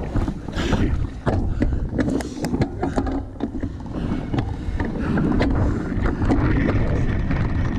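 Mountain bike ridden fast over bumpy grass, heard from a camera mounted on the bike: a steady low rumble of wind on the microphone and tyres on turf, with irregular clicks and rattles from the bike.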